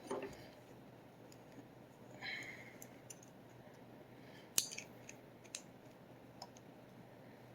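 Faint handling of a toy championship belt and plastic action figure: a short scrape, then a few sharp plastic clicks, the loudest about four and a half seconds in.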